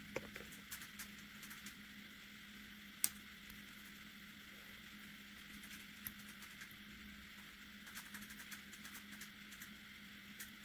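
Faint scattered clicks and taps of metal tweezers picking seeds out of a strawberry, with one sharper click about three seconds in, over a steady low hum.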